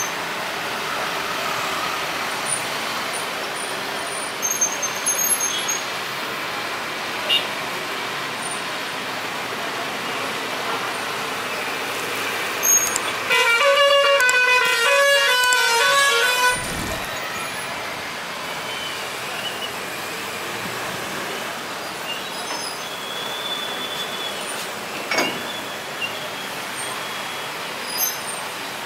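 Steady jet and airport background noise as an Airbus A320neo taxis slowly on idle engines. About halfway through comes a sharp click, then a few seconds of rapid, pitched beeping toots, ending in a brief low thud.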